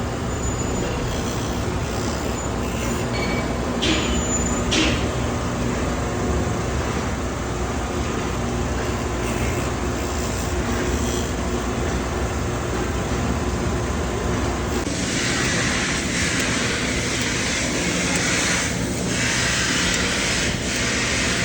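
Metalworking machinery running with a steady low rumble and hum. Two short high squeaks come around four to five seconds in, and about fifteen seconds in a loud high hiss joins in and carries on.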